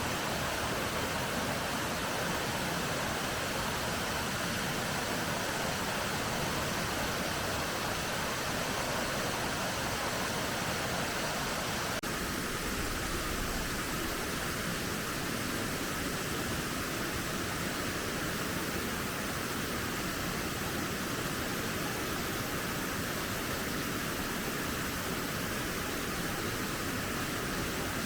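Mountain valley stream, water rushing steadily over rocks, with a slight change in tone about twelve seconds in.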